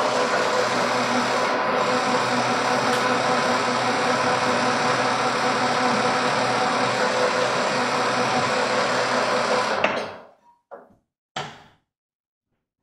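Electric pipe threading machine running, its reamer pressed into the end of a spinning 1/2 inch steel pipe, scraping off the inside burr with a steady hum and rasp. The machine stops about ten seconds in, followed by two short knocks.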